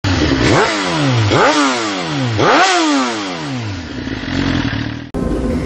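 Motorcycle engine revved three times, each rev climbing sharply and then falling away slowly, before settling lower and cutting off suddenly near the end.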